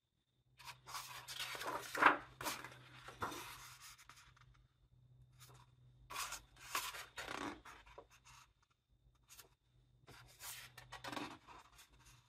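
Pages of a large hardcover book being turned by hand: three rustling page turns about four seconds apart, the first the loudest.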